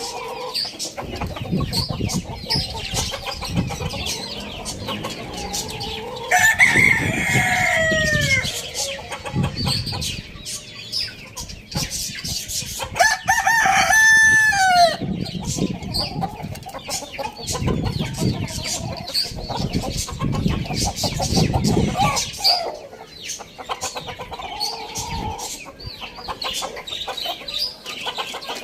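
A rooster crows twice, about six and thirteen seconds in, each crow a long call that slides down at the end, over the ongoing clucking of chickens.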